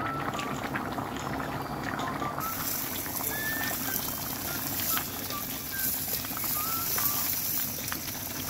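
Thick rice-and-lentil khichuri boiling in a pan, with many small irregular bubbling pops. About two seconds in, a steady high hiss joins the bubbling as the recording changes, while a wooden spatula stirs the pot.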